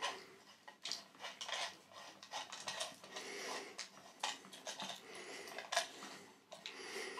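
Metal microscope-stand pillar being spun by hand and screwed into its aluminium base: irregular light metallic clinks, rattles and thread scraping.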